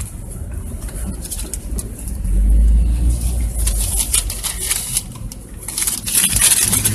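Car engine and low road rumble heard from inside the cabin with the driver's window down as the car pulls away, the rumble swelling about two seconds in. A hissing crackle rides over it in the second half.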